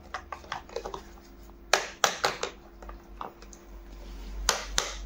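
Hard plastic toy car parts clicking and snapping as they are pressed together by hand. A run of light clicks comes first, then a few sharp snaps about two seconds in and a couple more near the end.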